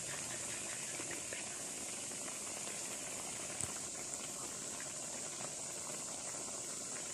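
Termite-mushroom curry boiling in a wok, bubbling steadily with small pops of bursting bubbles.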